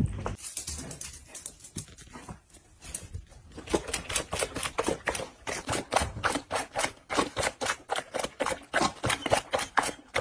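A rapid run of sharp clicks or taps, about four or five a second, starting faintly and growing steady a few seconds in.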